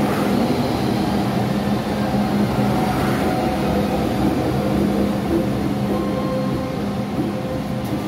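MTR M-train electric multiple unit running past at low speed: a steady rumble of wheels on rail with a few held motor tones, easing slightly near the end as the cab end goes by.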